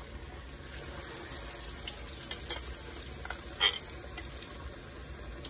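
Hot oil in an electric deep fryer sizzling steadily as akra fritter batter is scraped off a knife into it. A few short clicks of the metal knife against the bowl come between two and four seconds in.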